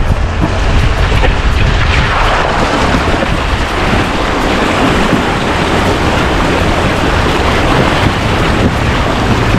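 Creek water splashing and rushing as an off-road vehicle's front tyre ploughs through a shallow stream crossing, starting about two seconds in. A low buffeting rumble of wind on the side-mounted microphone runs under it.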